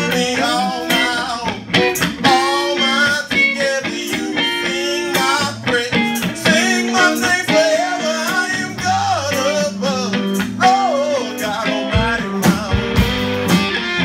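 Live band playing: a man sings over electric guitar, bass guitar and drums. About twelve seconds in the voice stops, and the band plays on with heavier bass and drum hits.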